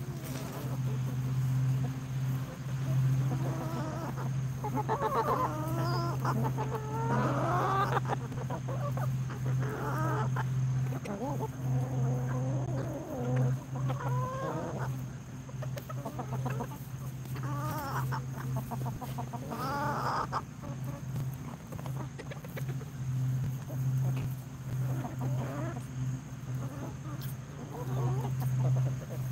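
A flock of hens clucking and calling as they forage, with scattered calls throughout, thickest about a quarter of the way in and again around two-thirds. A steady low hum sits underneath.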